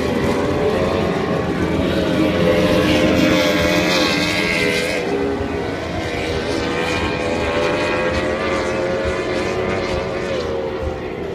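Outboard engines of tunnel-hull racing powerboats running at high revs, a steady high-pitched drone whose pitch dips and rises a few times.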